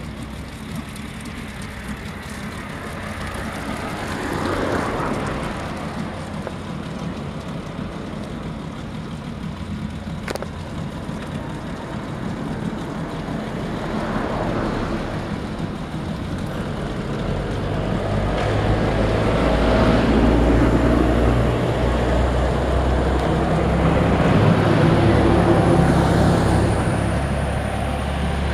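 Road traffic passing: vehicles swell and fade a few times over a steady rumble, with a low engine hum loudest in the last third.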